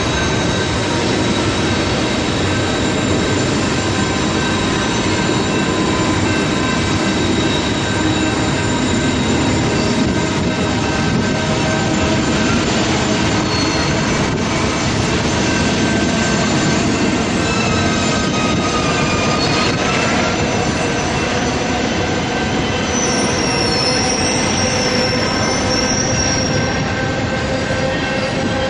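Flatcars of a rail train loaded with long welded rail rolling past, a steady rumble with metal squealing held on several high pitches. A louder high squeal comes in near the end.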